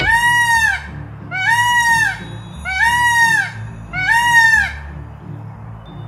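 Male Indian peafowl calling: four loud, nasal honks about a second and a half apart, each rising then falling in pitch. Background music with a steady low beat runs beneath.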